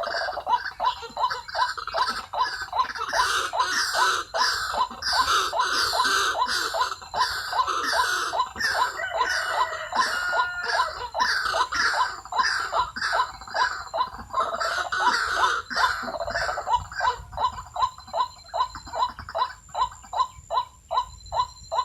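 White-breasted waterhen calling: a long run of rhythmic cackling notes, about three a second. The fuller cackling thins out near the end, leaving only the plainer repeated notes.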